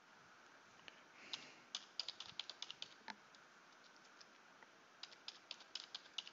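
Faint keystrokes on a computer keyboard in two short runs, one about two seconds in and another about five seconds in, over a quiet room hiss.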